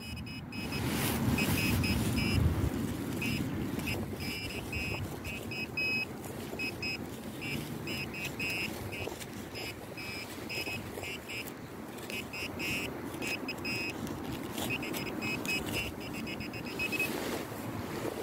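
Handheld metal-detecting pinpointer beeping in short, rapid bursts of one steady high tone, starting and stopping as its tip is worked through the dug soil and finds the target. A low rumble of wind and handling sits under it, loudest in the first few seconds.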